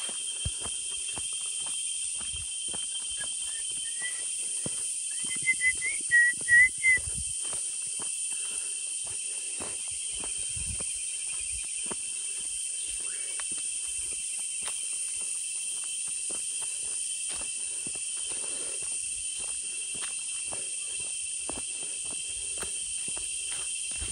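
Footsteps crunching along a dirt footpath over a steady high-pitched drone of insects. Between about four and seven seconds in, a short run of whistled chirps stands out as the loudest sound.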